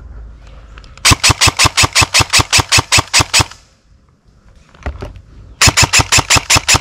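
Airsoft rifle firing two rapid strings of loud shots, about six a second: the first starts about a second in and runs a little over two seconds, the second starts near the end.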